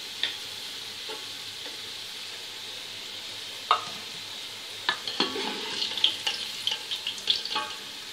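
Potatoes frying in hot oil in a steel pot with a steady sizzle, while a metal ladle lifting them out clinks and scrapes against the pot: a single clink early, another in the middle, then a run of clinks and scrapes in the second half.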